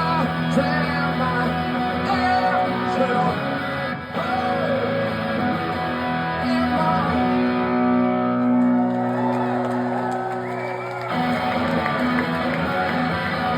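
Live rock guitar strummed hard, with a chord left ringing for a few seconds past the middle before it is cut off and the strumming starts again.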